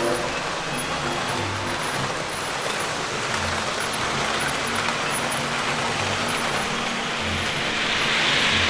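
00 gauge model trains running on the layout: a steady rumble of wheels on track and electric motors, with a low hum joining about three seconds in, growing louder near the end as a train passes close.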